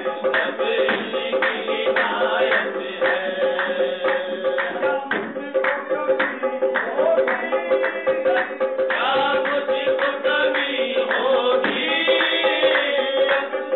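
Live qawwali: a harmonium holds steady drone notes while male voices sing, with a dense beat of hand-clapping throughout. The singing grows stronger about nine seconds in.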